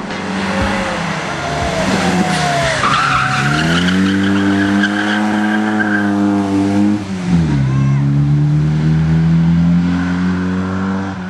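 Historic rally car's engine under hard driving on a tarmac stage. The revs fall as it slows into a bend, with a squeal of tyres, then climb steadily under full throttle. They dip sharply about seven seconds in at a gear change and climb again as the car accelerates away.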